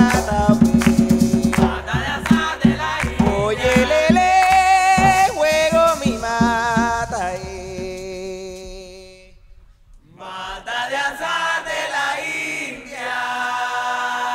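Bullerengue tonada sung by male voices, a lead singer and chorus, with hand drums struck in quick even strokes for the first two seconds or so. The singing breaks off briefly near the middle, then the voices come back without drums.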